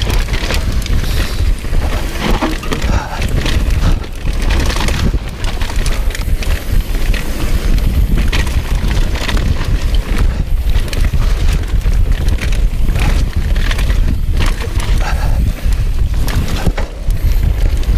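Mountain bike descending a dirt trail at speed: wind buffeting the chest-mounted camera's microphone as a heavy, steady rumble, with tyres crunching over dirt and the bike clattering over bumps in frequent short knocks.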